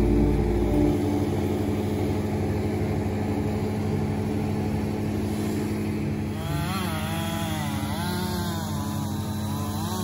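An engine running steadily; from about six seconds in its pitch swings up and down again and again.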